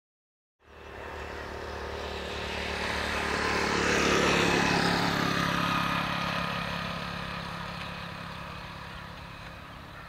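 Motorcycle engine passing by, starting suddenly about half a second in, growing louder to a peak around four seconds, then fading away.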